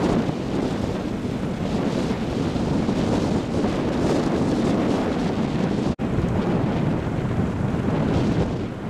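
Wind buffeting the microphone of a camera riding through street traffic, over the running of motorcycle engines. The sound drops out for an instant about six seconds in.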